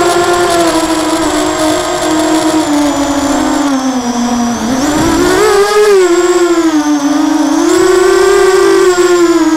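Lumenier QAV250 quadcopter's brushless motors and propellers whining, heard close up from the onboard camera. The pitch wavers with the throttle, sags to a low point about five seconds in, then climbs sharply and keeps wobbling.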